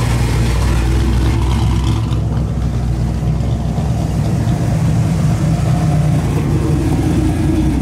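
Classic V8 cars rumbling at low idle through their exhausts as they creep past, the last a Chevelle SS. The low, steady burble grows a little stronger past the middle as the Chevelle comes closest.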